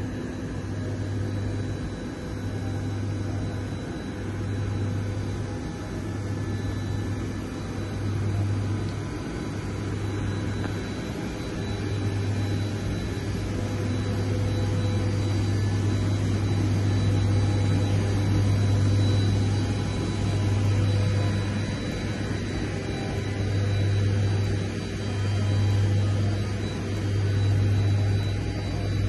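Steady mechanical hum and whine of airport ramp machinery around a parked Boeing 787-8, its engines not turning. A low hum swells and fades every second or two, under a thin steady high whine.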